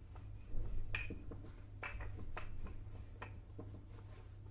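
Wooden rolling pin rolling out dough on a floured countertop: soft rubbing with irregular light knocks and clicks, roughly one or two a second, as the pin and hands work the dough, over a faint steady low hum.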